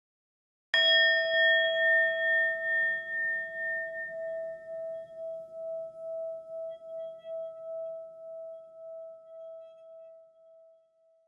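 A single struck metal chime about a second in, ringing with a slow wavering beat and dying away over about ten seconds.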